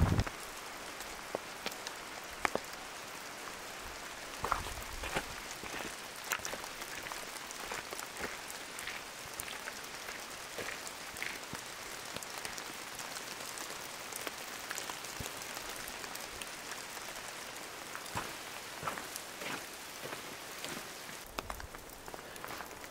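Steady rain falling on the forest, an even hiss with scattered sharper ticks of drops.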